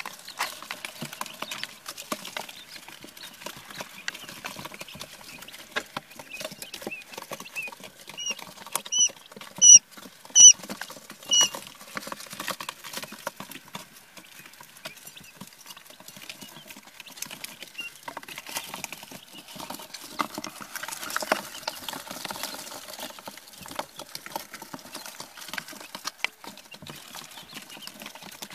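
Day-old quail chicks pecking and moving about in a brooder, a constant patter of small taps, with a short run of loud, high peeps about a third of the way in.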